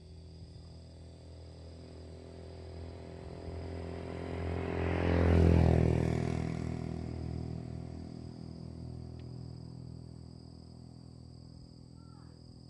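A motor vehicle passing by: its engine grows louder to a peak about halfway through, drops in pitch as it goes past, then fades away. Steady high-pitched insect buzzing runs underneath.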